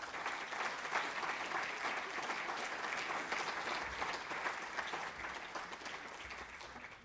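Audience applauding: many hands clapping at once, tapering off near the end.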